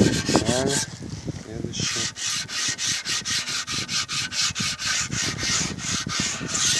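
Hand-sanding a primed wooden stair tread with fine 120–150 grit abrasive mesh: quick back-and-forth rubbing strokes, about four a second, with a short pause about a second in. The sanding takes off the grain fibres raised by the primer, bringing the wood to a matte finish.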